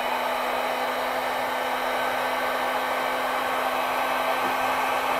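Electric industrial heat gun running steadily, blowing hot air: an even rush of air over a constant motor hum.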